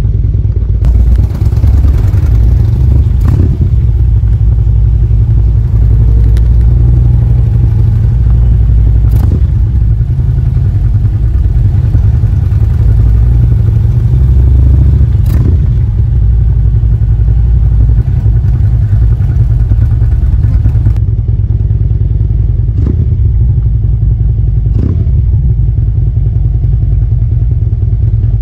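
Harley-Davidson motorcycle's V-twin engine running steadily at low speed while riding along a gravel road, with a few sharp knocks.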